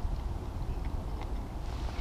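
Low, irregular rumble of wind buffeting the microphone.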